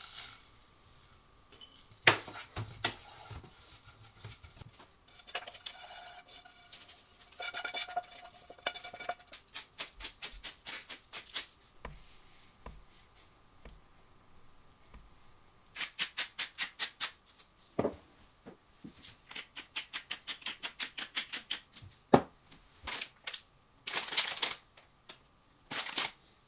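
Kitchen preparation sounds: nuts tipped into a frying pan and stirred with a wooden spatula, then runs of quick even chops, about five a second, as the nuts are chopped on a board. A few louder scrapes and knocks come near the end.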